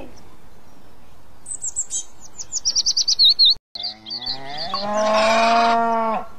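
Birds chirping in quick high twitters and trills, then a cow lows once, one long call of about a second and a half.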